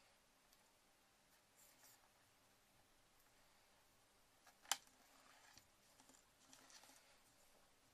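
Faint handling sounds of heat-shrink tubing being worked by hand, with one sharp click of the diagonal cutters about halfway through.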